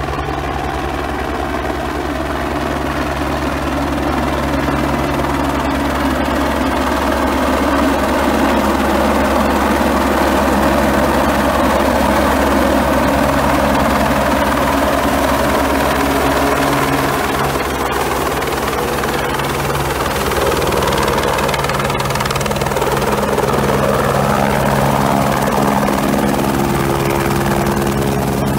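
Single-engine Airbus AS350-type helicopter, its main rotor and turbine running continuously as it flies in and descends to land. The sound grows louder over the first several seconds, and its pitch shifts partway through the descent.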